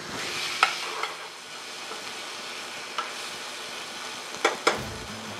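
Shrimp sizzling in hot oil in a steel skillet while being stirred with a metal spoon. The spoon clinks sharply against the pan several times, loudest in a quick pair near the end.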